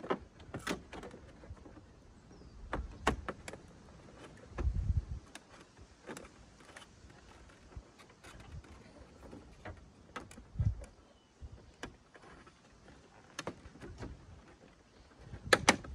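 Scattered sharp clicks and small knocks of hands working a scooter's plastic turn-signal lens and front fairing, fitting parts back after a crash, with a couple of duller thumps about five and eleven seconds in.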